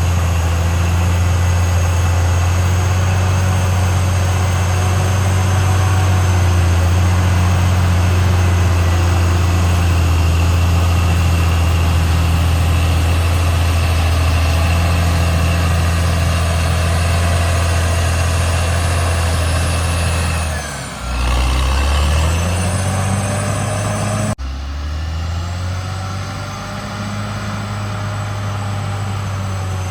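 Caterpillar D6R XL bulldozer's diesel engine running steadily with a deep, even drone. About two-thirds of the way through, the engine note sags, then rises back up. A few seconds later there is an abrupt break, after which it runs a little quieter.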